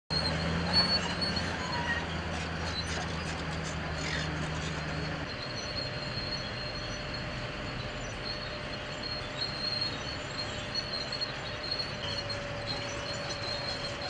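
Steady outdoor noise with a low machine hum that cuts off about five seconds in, and a thin high-pitched whine throughout.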